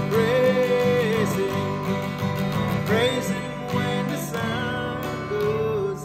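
Strummed acoustic guitar accompanying a man singing a worship song in long held notes.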